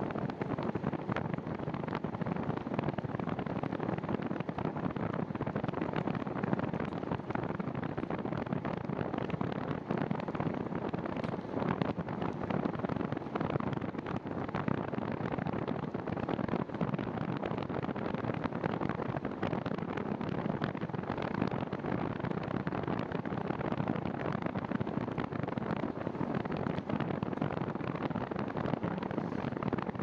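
Steady rushing wind noise on the microphone of a handlebar-mounted camera, mixed with tyre noise, as a bicycle rolls along a paved trail.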